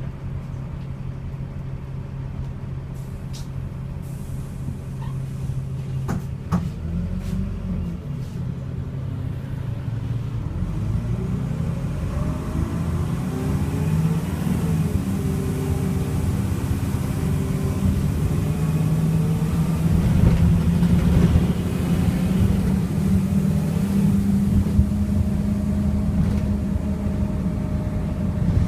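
Dennis Dart SLF bus's diesel engine and Allison automatic gearbox, heard from inside the saloon. It runs steadily at first, then the revs climb hard, drop at an upshift about halfway, and climb again to run loud and high in the last third: the over-revving and thrash this bus's Allison is known for.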